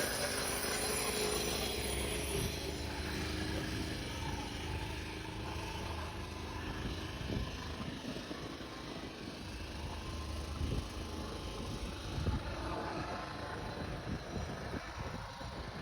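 Outdoor road traffic: a steady rumble and hiss of vehicles, with irregular low thumps and no single event standing out.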